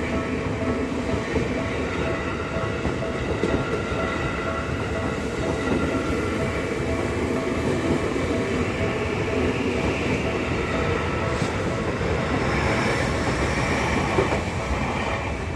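Tokyu Meguro Line electric train running through a level crossing, a steady rolling rumble of wheels on rail with several steady tones held over it.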